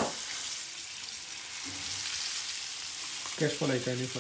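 Steady sizzle of spice-marinated pomfret shallow-frying in hot oil as two fish are laid into the pan.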